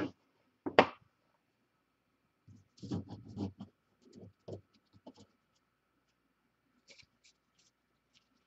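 Scattered desk handling noises: short scratches and rustles, then a few light clicks near the end, as cards and their holders are handled and set down.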